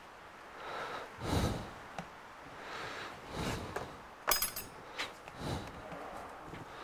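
Handling noises as a Surface Pro 9 tablet is shifted and laid flat on a metal work plate: a few soft knocks and scrapes, and a sharp click with a short metallic ring about four seconds in.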